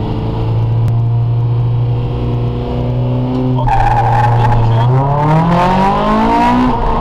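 Rally-prepared Honda Civic four-cylinder engine, heard from inside the car, held at steady revs on the start line and then launched: just under four seconds in, tyre noise comes in and the revs climb, with a quick drop at an upshift near the end before they rise again.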